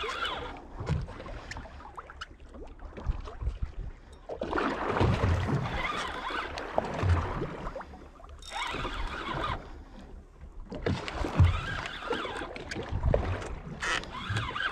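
Water and wind noise around a small fishing boat at sea, in irregular surges with low thumps, like waves slapping against the hull.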